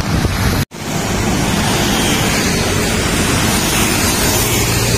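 Steady rushing noise of road traffic on a busy city street, mixed with wind buffeting the microphone. The sound cuts out abruptly for an instant under a second in.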